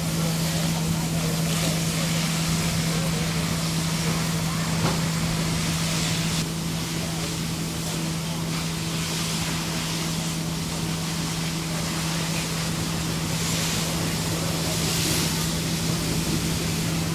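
An engine running steadily at one even low pitch, under a rushing noise that swells and fades every few seconds.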